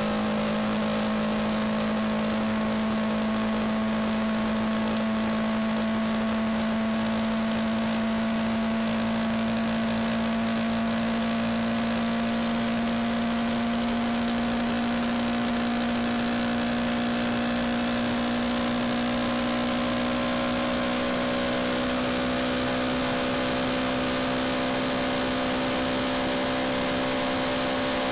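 Yamaha MT-125's 125 cc single-cylinder four-stroke engine running under steady throttle on the move, its note rising slowly and evenly in pitch as the bike gathers speed, over a steady rushing noise.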